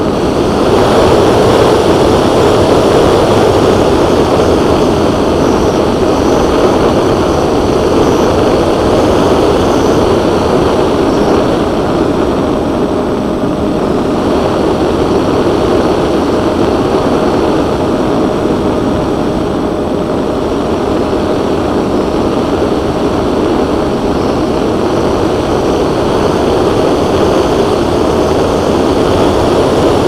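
Onboard sound of a twin-motor electric RC plane in flight: a steady rush of wind and spinning propellers with a faint constant whine from the motors, swelling slightly just after the start.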